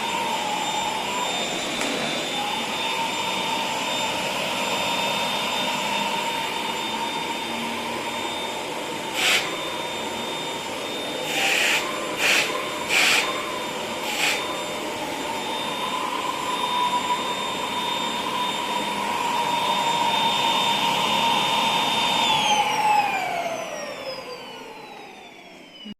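Dyson vacuum cleaner running with a steady high whine, with a few short sharp noises partway through. Near the end it is switched off and the motor winds down, its pitch falling away.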